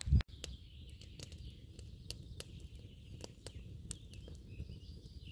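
Wood campfire crackling: sharp, irregular pops over a low steady rumble, with birds chirping faintly behind. A brief low thump right at the start.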